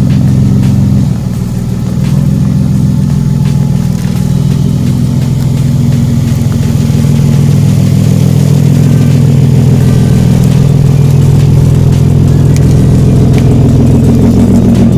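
Dodge Magnum's engine running, its note dropping about a second in and then holding steady, growing a little louder in the second half.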